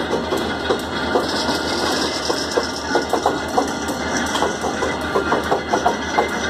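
Railroad turntable turning with a diesel locomotive on it: a steady engine idle under repeated clanks and knocks, about two or three a second, from the bridge and its wheels rolling around the pit rail.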